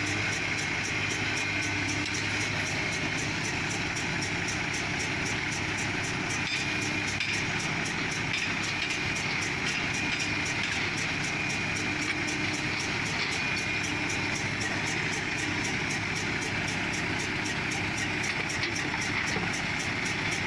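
Heavy diesel engine of an excavator or stuck truck running steadily under load, with an even rapid ticking over a constant low hum.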